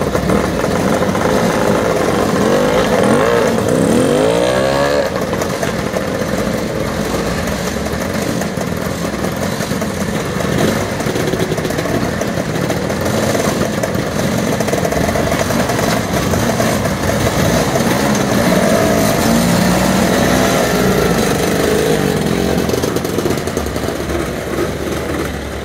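Motorcycle engine running, with a rise in revs about three to five seconds in.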